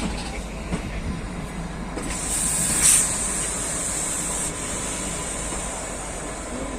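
Kalka–Shimla narrow-gauge toy train running along the track: a steady rumble, with a loud high hiss from about two seconds in to about four and a half seconds in.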